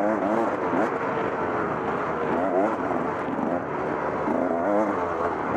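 Dirt bike engine revving up and down over and over during off-road race riding, over a steady rush of noise.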